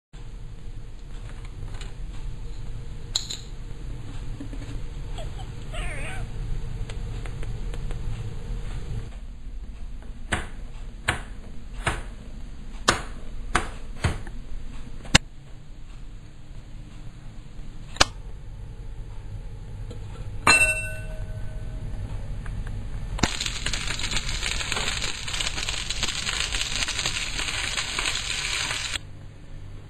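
Sausages sizzling in a frying pan: a loud steady hiss that starts about two-thirds of the way in and cuts off suddenly near the end. Before it there is a low steady hum, then a string of sharp clicks and a single metallic clink with a short ring.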